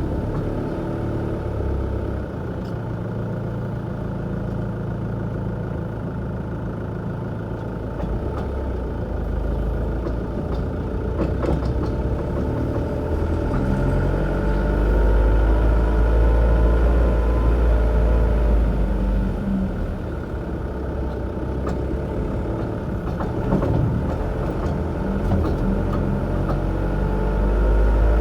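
Mk6 Ford Transit 2.0 diesel van running with a low steady rumble that swells louder about halfway through. A few sharp knocks come from the front wheel area, despite recently fitted new tie-rod ends.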